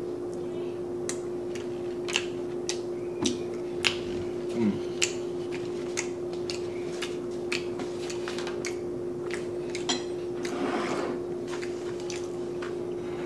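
Close-miked chewing of a mouthful of crispy oven-baked chicken katsu: irregular wet mouth clicks and smacks, one or two a second. A steady low hum sits under it, and a soft rush of noise comes about ten seconds in.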